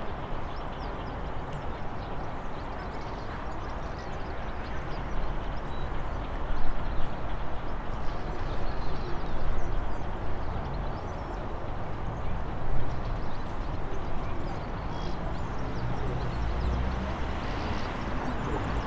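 Black 5 two-cylinder 4-6-0 steam locomotive running slowly into the station: a steady low rumble with a few louder knocks, the sharpest about a third of the way in and again about two-thirds in.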